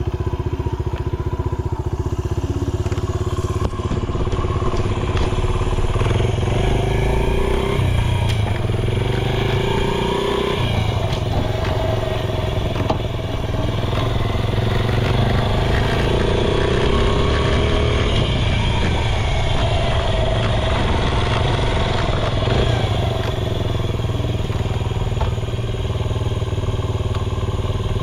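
Honda Ape 50's single-cylinder four-stroke engine running through a Racing Service ZERO aftermarket muffler, its revs rising and falling a couple of times. It runs without abnormal noises.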